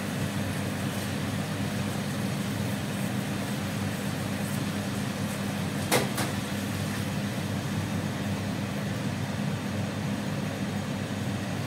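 Steady hum and hiss of a pan of chili sauce simmering on an induction cooker with its fan running, and one sharp click about six seconds in.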